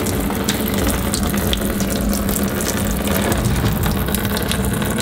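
Engine coolant draining from a BMW E36 M3's radiator in a steady stream, splashing into a plastic drain pan, with little drips and spatters over a steady low hum.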